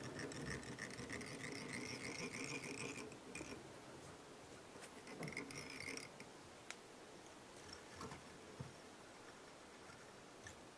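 Faint scratchy rustling of polypropylene yarn and thread being wound onto a fly-tying hook in a vise, strongest in the first few seconds and again briefly in the middle, with a few light clicks near the end.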